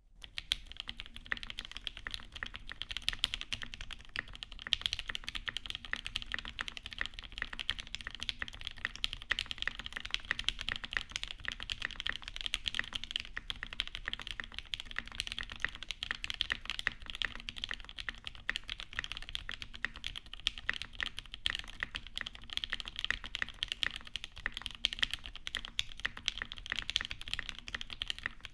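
Continuous typing on a custom mechanical keyboard, a zekk.works 420.2 with an aluminium case and brass weight, an FR4 half plate and no dampening, fitted with lubed Alpaca linear switches and GMK keycaps. It makes a dense, unbroken stream of keystroke clacks.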